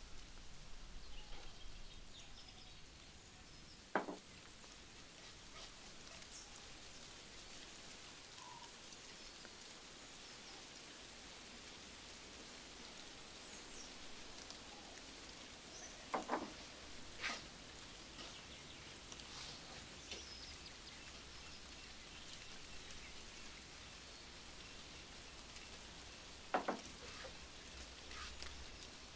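Faint steady background hiss broken by four sharp knocks, one about four seconds in, two close together midway and one near the end, with a few faint high chirps.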